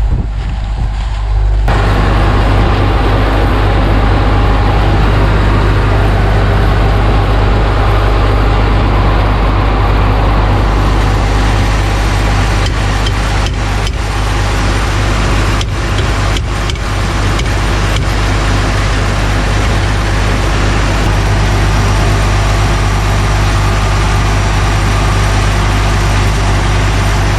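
Combine harvester running steadily: a deep, even engine hum with a broad rush of machinery over it, which swells about two seconds in and brightens again near the middle. A few sharp clicks come partway through.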